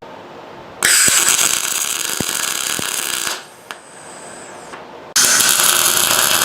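Welding arc crackling in two bursts of about two and a half seconds each, starting and stopping abruptly: added pieces being welded onto a steel mount.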